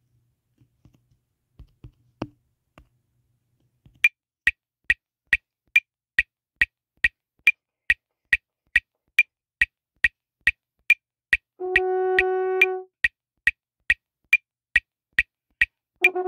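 Metronome clicking steadily at about 140 beats a minute, starting about four seconds in. About eleven and a half seconds in a French horn sounds one held note for a little over a second, and near the end the horn begins playing notes over the clicks.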